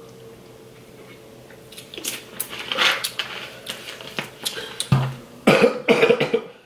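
Coughing and throat clearing in short bursts after gulps of soda from a plastic bottle, starting about two seconds in and loudest near the end.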